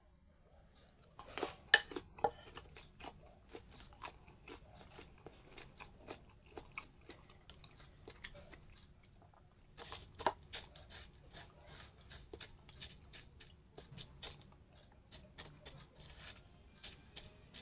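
Close-up chewing of crunchy mango: a string of sharp, wet crunches and bites, which pause briefly a little past halfway and then start again.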